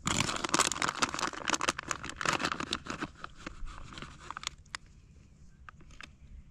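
Plastic bag of shredded cheese crinkling and rustling as the cheese is shaken out of it and sprinkled by hand. Dense for about three seconds, then thinning to scattered crackles that die away about five seconds in.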